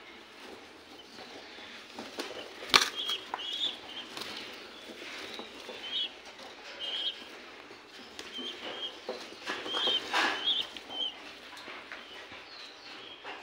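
Young German Beauty Homer and Danish Tumbler pigeons moving about in a wire cage, with scattered short high chirps and rustling. A sharp knock comes about three seconds in.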